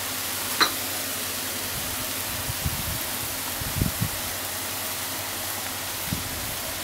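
Minced chicken sizzling steadily as it fries in a frying pan. There is a sharp click about half a second in and a few low thumps later on.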